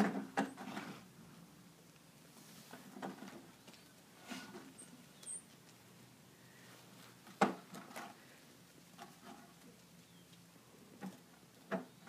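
Empty plastic bucket being nosed and knocked about by miniature donkeys with their heads inside it: scattered soft knocks and scrapes, the sharpest about seven seconds in.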